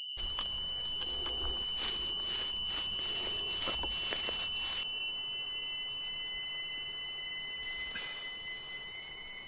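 A high-pitched steady ringing tone, the ear-ringing effect that follows a gunshot, over rustling and handling of rope in dry grass for the first five seconds. A second, slightly lower steady tone comes in about halfway through.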